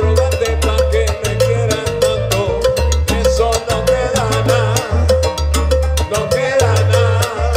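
Live salsa band playing: a stepping bass line under congas and bongos, with dense percussion strokes and a wavering, vibrato-laden melody line riding over the top toward the end.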